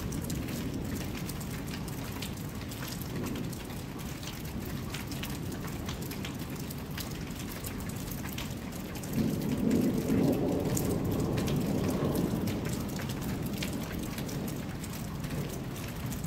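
Steady rain falling, with many small drop ticks. A low rumble of thunder swells about nine seconds in and fades away over a few seconds.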